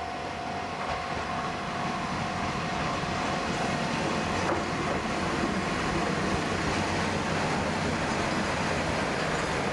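Kanto Railway KiHa 532 diesel railcar pulling into a station, its running noise and wheels on the rails growing louder as it comes close.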